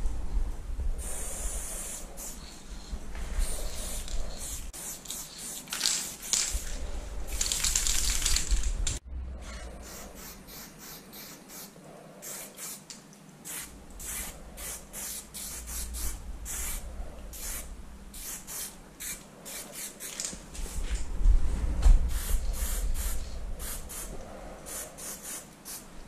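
Aerosol spray paint cans hissing as a wall is painted: long sprays for the first several seconds, then many short, quick bursts for small fills, with a low rumble underneath at times.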